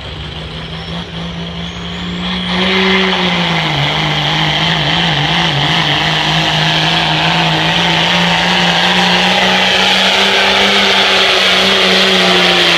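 Diesel pickup truck engine running at full throttle under heavy load while pulling a weight-transfer sled. Its pitch holds steady, and it grows much louder about two and a half seconds in.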